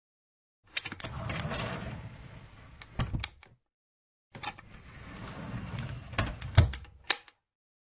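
A furniture drawer sliding along its runners twice. Each time a few clicks are followed by a scraping slide that ends in knocks as the drawer bumps home. The knock near the end of the second slide is the loudest.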